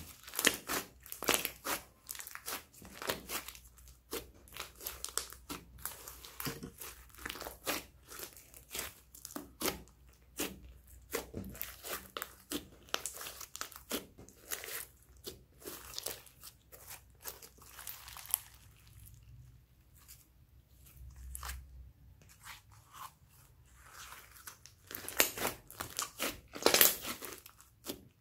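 Thick pink slime mixed with small foam beads being squeezed and stretched by hand, giving a dense run of crackling, popping clicks. The clicks thin out for a few seconds past the middle and are loudest near the end.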